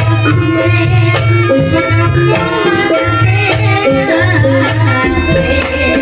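Banyumas gamelan music (gending Jawa) accompanying an ebeg horse dance: metal keyed instruments ring steady held notes over a low pattern that repeats about every half second.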